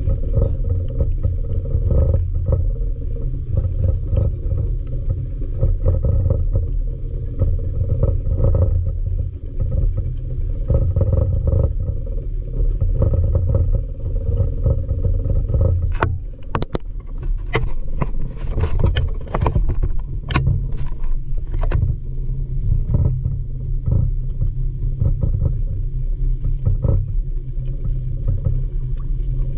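Steady low rumble of the fishing boat's engine, muffled by a waterproof camera cover. A run of sharp clicks and knocks comes in about halfway through and lasts several seconds.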